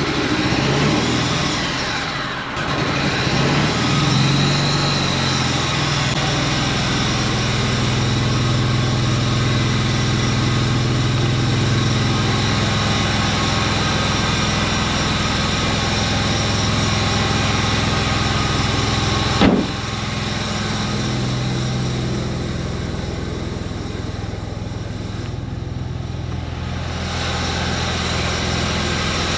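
An engine running steadily, its speed rising and falling in the first few seconds, with one sharp knock about two-thirds of the way through.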